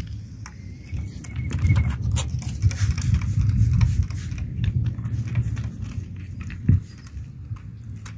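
Rough agate stones clicking and scraping against each other in a hand, many small sharp clicks over a steady low rumble, with one louder thump about two-thirds of the way through.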